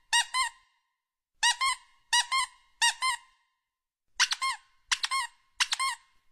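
Squeaky-toy squeaks that go with presses on an alpaca's nose: seven quick clusters, the first four in pairs and the last three in threes. Each squeak is short and high and bends up and down in pitch, with dead silence between the clusters.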